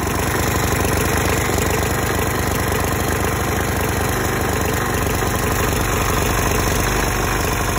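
Craftsman self-propelled push mower's single-cylinder engine running steadily at idle with its crankcase completely dry, no oil in it.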